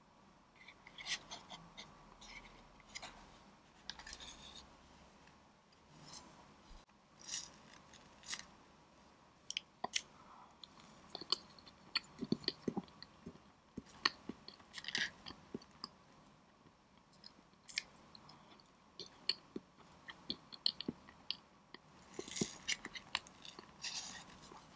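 Scattered soft clicks, taps and scrapes of a cake server and fork on a plate as a slice of tiramisu cake is cut, lifted and pressed with the fork. Some quiet wet mouth sounds are mixed in, close to the microphone as in eating ASMR.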